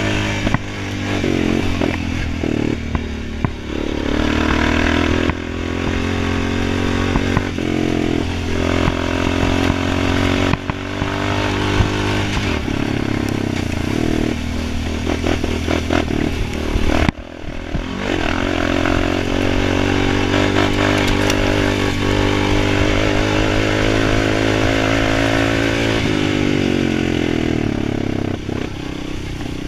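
2013 Honda Foreman 500 ATV's engine, fitted with an aftermarket HMF exhaust, running under load as the quad is ridden, its revs rising and falling with the throttle, along with knocks and clatter from rough ground. A bit past halfway the engine note cuts sharply for an instant, then picks back up.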